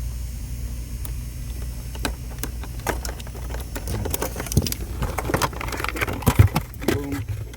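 Scattered sharp clicks and knocks of parts being handled and unclipped during a brake light switch replacement, busier in the second half, with one loud knock about six and a half seconds in. A steady low hum runs underneath.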